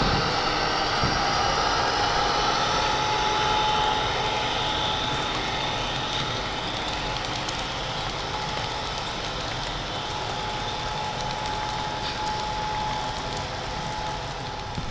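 Model passenger train running past on the layout track: a steady whirring rumble of wheels and motor, with a faint steady whine, easing off a little after a few seconds.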